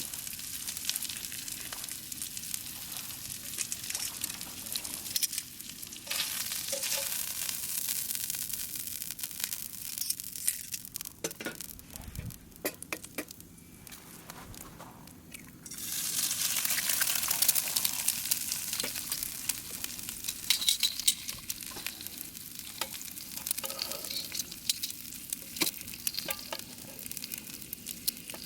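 Beef tongue sizzling in a frying pan over a campfire, spitting with small crackles. The sizzle dies down for a few seconds in the middle, then comes back louder.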